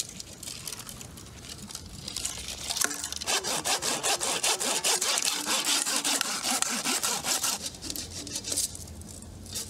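A saw cutting through wood: quiet scraping at first, then about four and a half seconds of steady, rapid rasping strokes from about three seconds in, easing off near the end.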